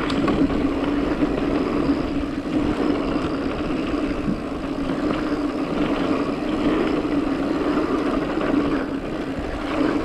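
Mountain bike rolling down a dirt trail, heard from a camera on the bike or rider: steady tyre and wind noise with a constant steady hum.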